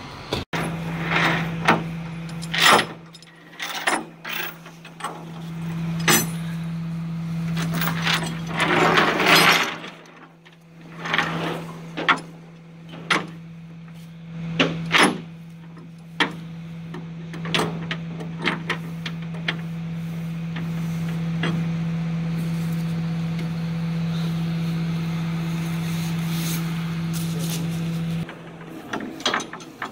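Tilt-and-load flatbed tow truck giving a steady low hum that cuts off suddenly near the end, with repeated sharp metal clanks of tow chain and hooks against the steel diamond-plate bed.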